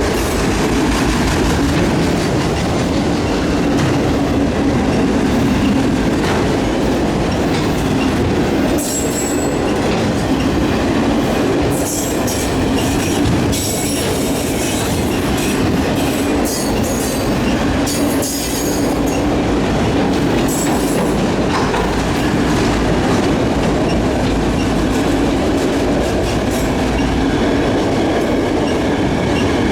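Freight train cars rolling past at speed, a steady rumble of wheels on rail with clickety-clack over the joints. Bursts of high-pitched wheel squeal come and go in the middle stretch.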